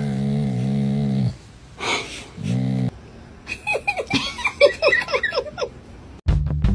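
A dog's low, buzzing, wavering groan while being petted, cut off about a second in. Then a run of short, high-pitched squeaky sounds for about two seconds, and music starts near the end.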